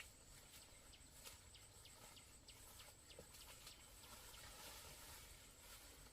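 Near silence: faint outdoor room tone with scattered light ticks.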